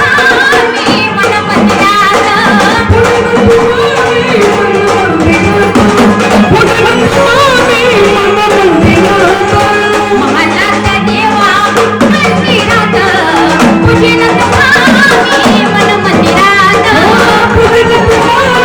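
Gondhal folk devotional music: a voice singing over driving sambal drum strokes and held organ (keyboard) notes.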